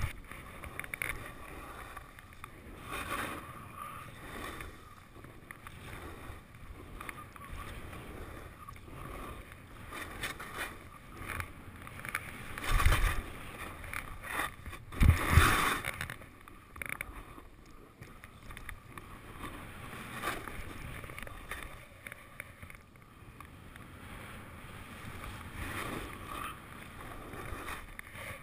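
Skis scraping and swishing through soft spring snow, rising and falling turn by turn. Two louder thumps come a little under halfway through.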